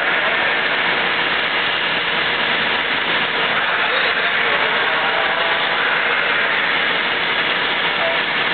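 Industrial vacuum equipment running with a steady, even rushing noise.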